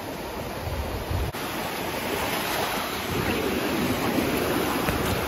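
Small sea waves breaking and washing up over the sand in shallow water, a steady surf wash that grows slowly louder. Wind buffets the microphone in low gusts at times.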